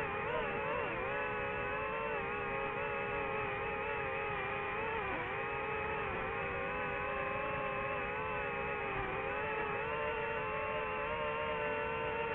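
DJI FPV drone's motors and propellers whining steadily, the pitch dipping briefly about five seconds in as the throttle changes.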